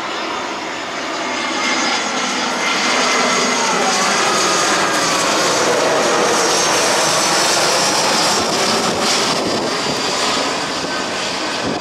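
Airbus A320 jet airliner on final approach with its landing gear down, flying low overhead. The engine noise swells to a peak midway and eases off near the end, with a whine that slides down in pitch as it passes.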